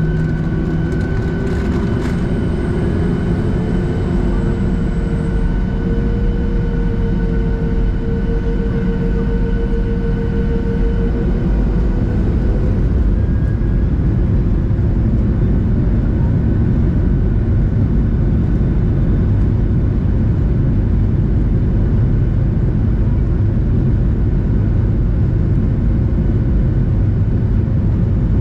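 Cabin noise over the wing of a Boeing 737-700 taxiing, its CFM56-7B jet engines running with a steady hum and whine. A tone rises a couple of seconds in and fades out near the middle, after which a deeper rumble grows a little louder.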